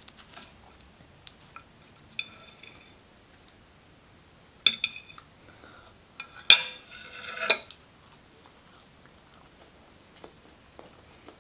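Metal fork clinking and scraping against a ceramic plate of rice, with two louder clattering, ringing bursts about five and seven seconds in, and small faint ticks between.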